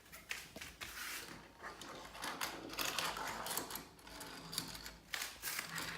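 Light, irregular clicking and rattling of plastic toy pieces, toy trucks and track parts being moved about.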